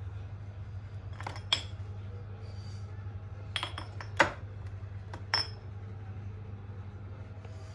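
Light kitchen clinks of glass and hard tableware: about five short, sharp knocks, the loudest about four seconds in, over a steady low hum.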